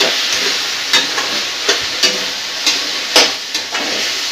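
Spatula stirring bottle gourd and fish head curry in a metal kadai over a steady sizzle of frying, with a sharp scrape against the pan every second or so.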